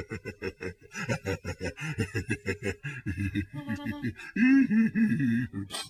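A cartoon seal's voice laughing in rapid, choppy bursts, about six to eight a second, then drawing out into a couple of longer pitched cries near the end.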